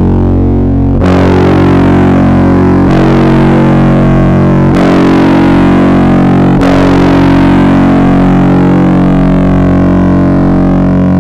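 Loud droning music from a demo track: dense, sustained low notes, with a new chord struck about every two seconds four times, the last one held to the end.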